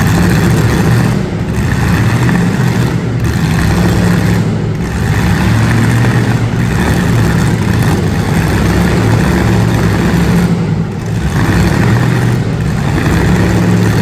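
Demolition derby street stock car engines running loud and revving, with short dips in level now and then.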